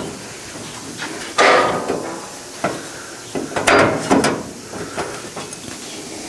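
Sheet-metal patch panel handled by gloved hands against the car's steel wheel well as it is trial-fitted. A scraping rub about a second and a half in, a sharper metallic knock-and-scrape near four seconds, and light taps and rubs between.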